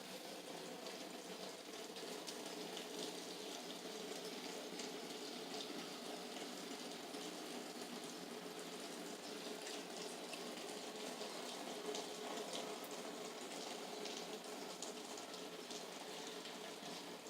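Steady rain falling, an even hiss with scattered light ticks of drops.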